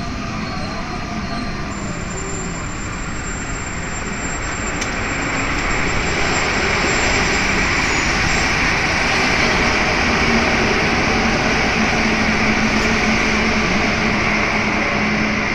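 Interior running noise of a Santiago Metro NS-93 rubber-tyred train in motion between stations, growing louder about six seconds in as another train passes close alongside.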